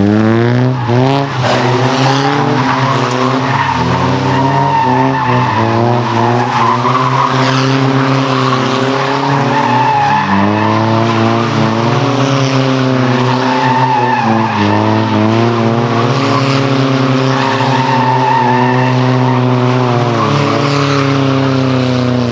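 Two Nissan 240SX drift cars doing tandem donuts. Their engines climb sharply in revs at the start, then hold high with a wavering pitch, while the rear tyres screech steadily as they spin.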